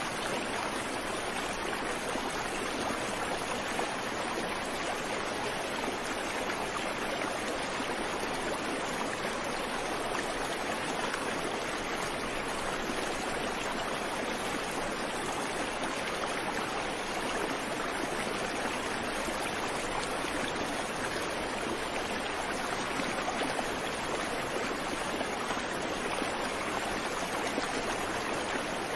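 Creek water flowing and splashing over stones, a steady even rush with no birds.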